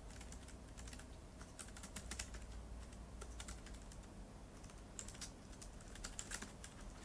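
Keyboard typing: quiet, irregular key clicks, some in quick runs, as text is entered on an iPad's keyboard.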